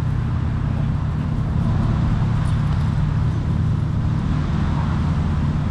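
Steady low rumble of road traffic and engine noise.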